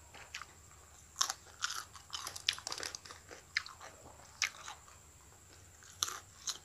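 Crisp crunching and chewing of raw green salad vegetables, picked up close on a phone headset microphone: a quick run of crunchy bites from about a second in, and a few more crunches near the end.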